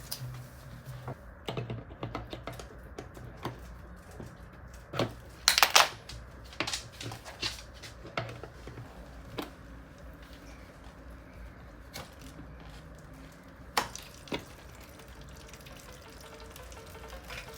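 Scattered metallic knocks and clinks of hand tools and parts being handled, the loudest a cluster about five to six seconds in, with a few sharp clanks later.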